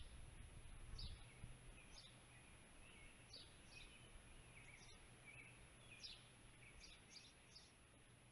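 Faint birds chirping: short, high chirps repeated a dozen or so times, over a low steady hum.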